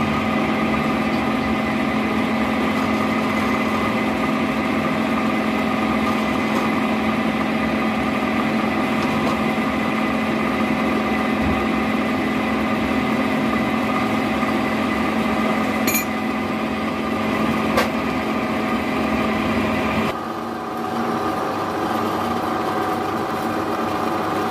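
A small engine running steadily at an even speed, with a couple of light clicks; about twenty seconds in its low note drops away and it runs on more quietly.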